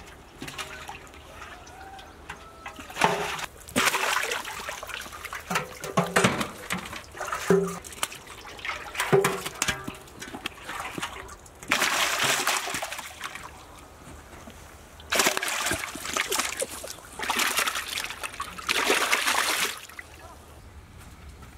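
Live murrel (snakehead) fish splashing and thrashing in a steel tub of shallow water as they are handled and moved in, in repeated bursts of splashing and sloshing, some a second or more long.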